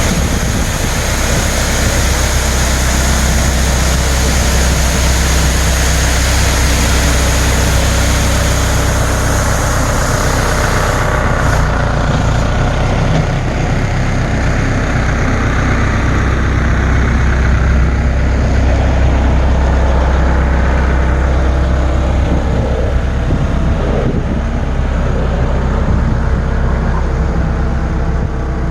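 Heavy vehicle engine running steadily with a deep, even hum. A high hiss on top thins out about eleven seconds in.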